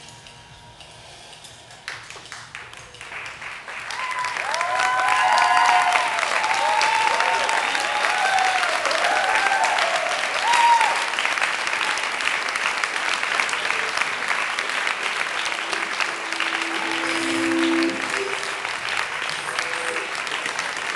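Audience clapping that swells up about two seconds in and keeps going, with whoops and cheering voices over it for several seconds once it peaks.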